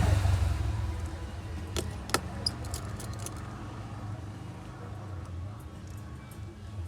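A few short, light metal clicks from tiny iPhone 6 Plus screws and small tools (screwdriver, tweezers) being handled and set down, mostly about two to three seconds in, over a steady low rumble that is loudest at the start.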